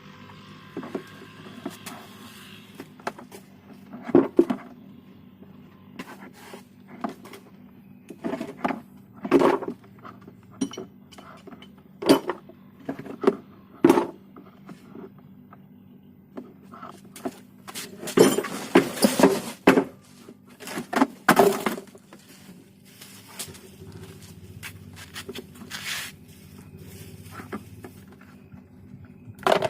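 Irregular hard clicks, clinks and knocks of tools and parts being handled, with a busy patch of clatter about two-thirds of the way through, over a faint steady hum.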